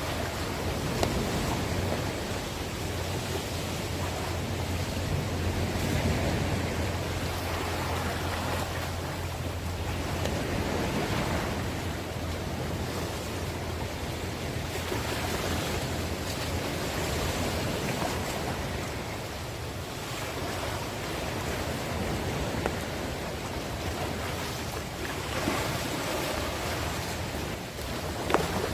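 Heavy rain with gusty wind, a steady rushing that swells and eases every few seconds, with an occasional light knock.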